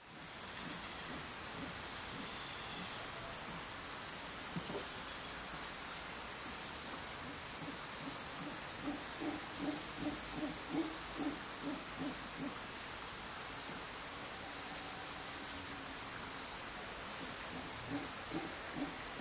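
Mantled howler monkey making low rhythmic grunting breaths, about two a second, in a run around the middle and again near the end: the heavy breathing that builds up to a howl. A steady high insect drone runs underneath.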